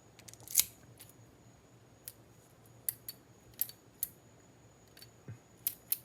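Scattered sharp metallic clicks and ticks, about ten in all, from the small parts of a euro cylinder lock and the tools on it being handled and pried apart. The loudest click comes just over half a second in.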